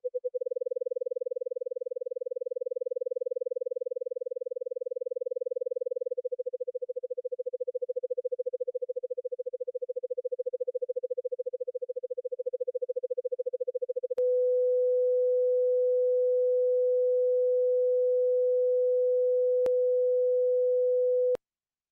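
A 500 Hz sine tone from the BeeOne brainwave generator, amplitude-modulated into fast, even pulses whose rate changes twice. About 14 seconds in, the modulation is switched off and the tone holds steady, then cuts off suddenly near the end.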